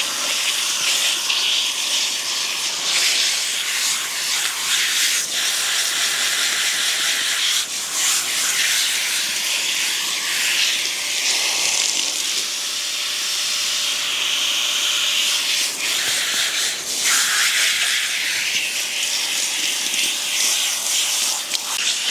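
Warm water spraying from a hose nozzle onto a horse's wound over the hock, lavaging it: a steady hiss that changes tone now and then as the spray shifts.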